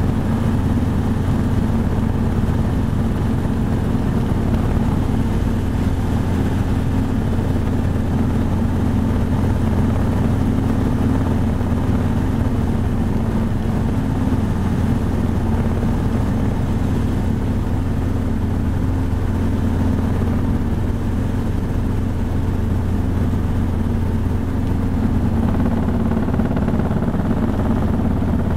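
Helicopter's rotor and engine running steadily, heard from inside the cabin as it descends on a landing approach.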